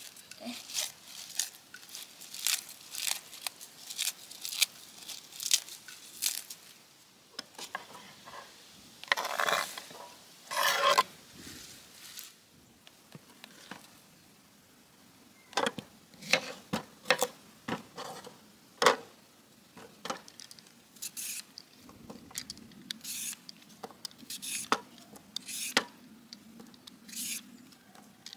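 Salad being made by hand: crisp lettuce leaves torn and rustled into a glass bowl, with a couple of louder rustles about ten seconds in. Later comes a string of short taps and crunches as a knife slices a cucumber on a wooden cutting board.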